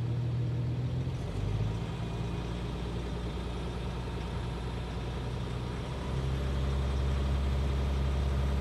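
Citroën C6's 2.7 V6 HDi diesel (UHZ) running just above idle with a light clatter, a subtle tapping from the injection that the owner suspects is a slightly sticking injector. The engine note shifts about a second in and gets a little louder around six seconds in.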